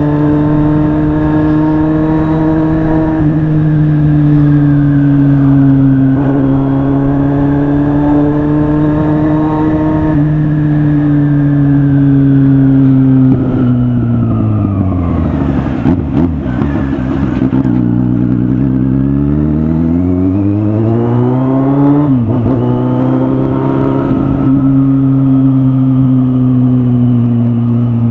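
Kawasaki Z800 inline-four motorcycle engine running under way, holding a steady pitch with brief steps as gears change. About halfway through the revs fall away as it slows, then climb again and it shifts up before settling back to steady running.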